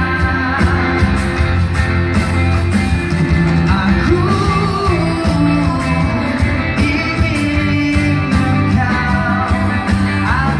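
A live pop-rock band in a large arena: a singer's long, wavering sung notes over a steady drum beat and bass, heard from far back in the crowd.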